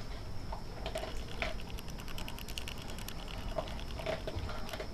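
Siberian husky eating dry kibble noisily from its bowl: crunching and quick clicks of kibble and teeth against the bowl, with a dense run of clicks about two seconds in.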